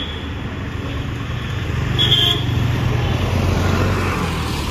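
Road vehicle running steadily in traffic, a low engine and road rumble, with a short high-pitched horn toot about two seconds in.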